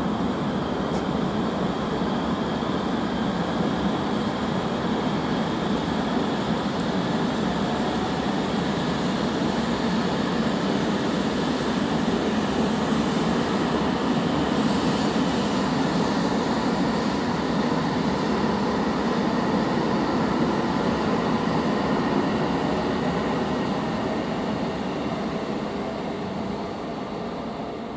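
An E2 series Shinkansen train running slowly away along the station tracks: a steady, even sound of wheels and motors that fades over the last few seconds as it draws off.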